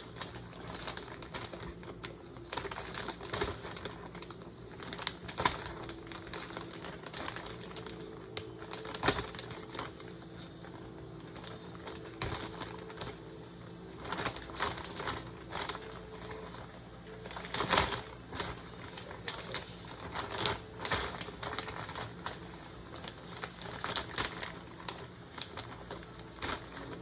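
Shrimp frying in hot oil: irregular pops and crackles over a steady low hum.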